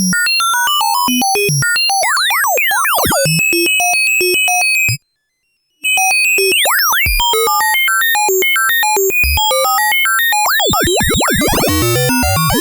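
Eurorack synthesizer patch: a Morphing Terrarium E350 oscillator through a modulated filter plays a fast run of short notes that jump around in pitch, with swooping, warbling pitch glides. It cuts out completely for under a second about five seconds in.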